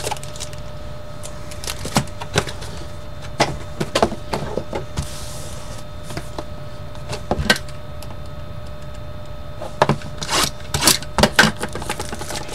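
Clicks, taps and crinkles of trading-card mini boxes and packs being handled, cardboard opened and packs pulled out, in short scattered clusters that are busiest near the end. A faint steady hum runs underneath.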